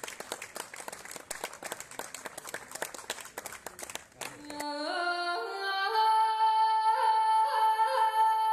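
Audience applause, a dense patter of clapping hands, which stops about four and a half seconds in. A high melody takes over, climbing in small steps and then holding a long note with a slight waver.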